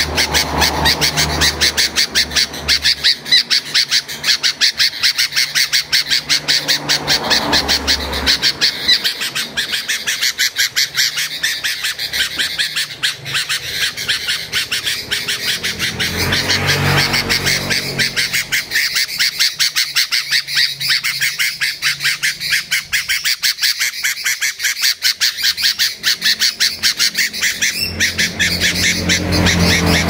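Caged songbird calling in a continuous rapid chatter of sharp, high repeated notes, pulsing about four times a second, with a low hum coming and going underneath.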